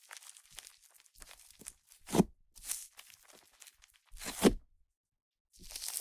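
Clay-and-butter slime made with Yoda clay being squeezed and folded by hand. Trapped air pops, crackles and sizzles, with a louder squish about two seconds in and another about four seconds in.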